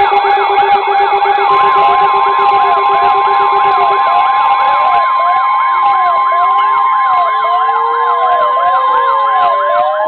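Several NOAA weather alert radios sounding their alarms together for a severe thunderstorm warning: fast warbling, siren-like sweeps over pulsed beeps that stop around four and five seconds in. From about a second and a half in, a long steady tone runs underneath, and after about five seconds the sweeps slow to a rise and fall about once a second.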